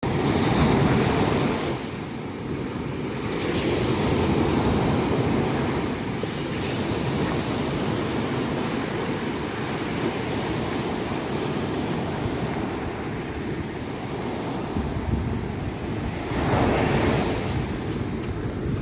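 Indian Ocean surf breaking on a beach in a continuous wash, swelling as waves crash near the start, around four seconds in and again near the end. Wind buffets the microphone with a low rumble.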